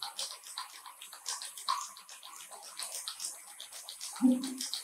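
Battery-powered crawling crab toy running on a tiled floor, a fast, irregular clicking and rattling of its mechanism. About four seconds in comes one short, low voiced sound.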